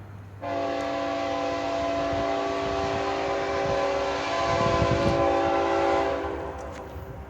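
Air horn of a Norfolk Southern freight locomotive sounding one long multi-note chord, starting about half a second in, holding for about six seconds, then fading, over a low rumble.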